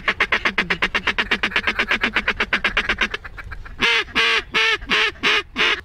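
Mallard duck call blown in a fast, even chatter of about ten notes a second, a feed chuckle. After a brief pause near the three-second mark it breaks into loud, evenly spaced quacks, about three a second.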